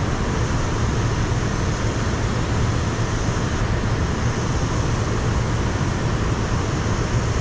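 Steady rush of water pouring through a dam spillway, an even wash of noise with a strong low rumble.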